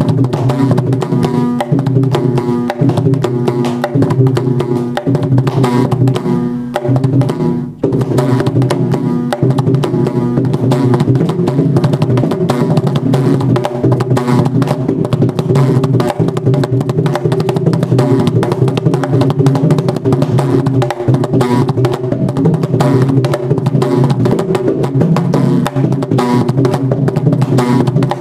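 Mridangam played solo with both hands: a fast, continuous stream of strokes on its two heads, ringing pitched strokes mixed with dull bass thuds, in a Carnatic tani avartanam in Mishra Chapu tala. The playing breaks off for an instant about eight seconds in.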